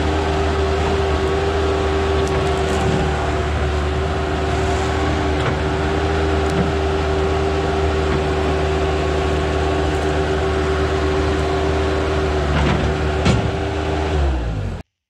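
Bobcat S185 skid steer's diesel engine running steadily while the bucket works through brush, with two sharp knocks near the end. The engine note drops just before the sound cuts off suddenly.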